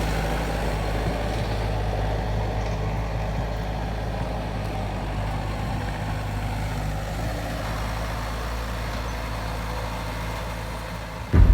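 Bobcat skid steer's engine running steadily, a low even hum that slowly gets a little quieter.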